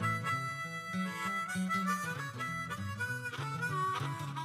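Background music: a harmonica-led tune with bending notes over a bass line.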